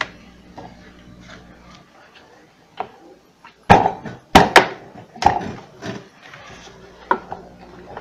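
About seven sharp knocks and clacks of hard plastic on the wet/dry vacuum's housing as it is handled and pressed together. They are loudest in a quick cluster around the middle.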